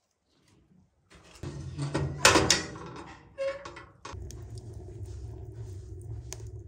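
Split firewood knocking and clattering against the iron of a wood-burning stove as logs are loaded into it, the loudest knocks about two seconds in, with a brief squeak a little later. From about four seconds in, a steady low rumble from the burning firebox with a few sharp crackles.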